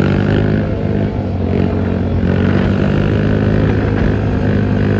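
Sport quad (ATV) engine running at steady revs, held in a wheelie, heard over the rush of the moving vehicle that films it. The note stays even throughout.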